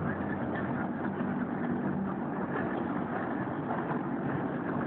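Navy MH-53E heavy helicopter running, a steady engine and rotor noise.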